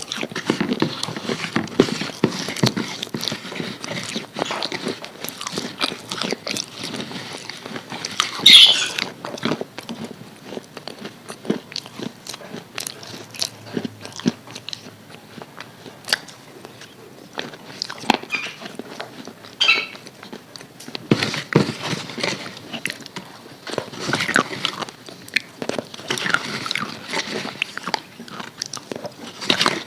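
Close-up crunching and chewing of crispy fried chicken, with many short crackles and bites throughout.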